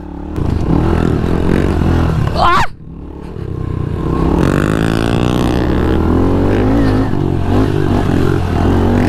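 Pit bike engine running close up under riding load, revving up and down as the throttle is worked. There is a brief sharp rev about two and a half seconds in, then a sudden break in the sound before the engine builds up again.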